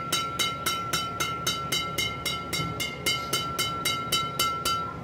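Freshly strung Li-Ning Aeronaut 8000 Combat badminton racket, strung with Yonex BG66 Ultimax at 29 lbs, having its string bed tapped about three and a half times a second, each tap a sharp, ringing ping. This is the stringer's sound check of a tight string bed. The tapping stops just before the end.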